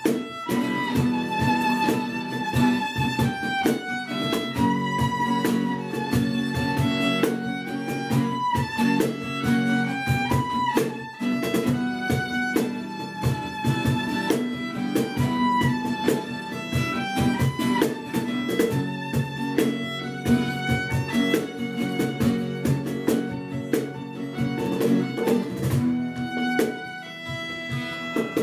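Instrumental passage from a live acoustic trio: a violin plays a moving melody over a strummed acoustic guitar, with a cajon keeping a steady beat.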